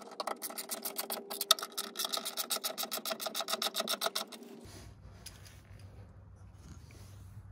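Ratchet wrench clicking rapidly and evenly, about eight clicks a second, while a bolt on a running-board mounting bracket is run in. The clicking stops after about four seconds and gives way to a quieter low hum.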